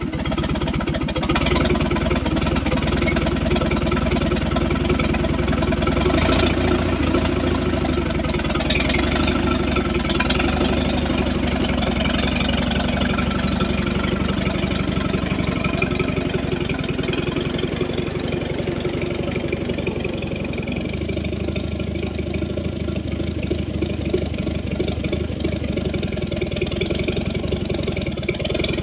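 Farmall Super AV tractor's four-cylinder gasoline engine running steadily at low speed with an even, rapid firing beat, heard close up. It gets a little softer about two-thirds of the way through.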